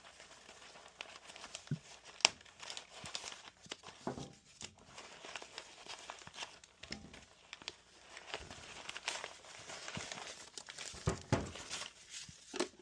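Packaging being handled during unboxing: irregular crinkling and rustling with small clicks and knocks as accessories are taken out of their wrapping.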